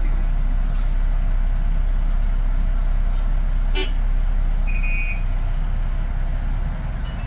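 Steady low rumble of a car's engine and road noise heard inside the cabin in slow traffic. There is a sharp click a little past halfway, then a short high beep about a second later.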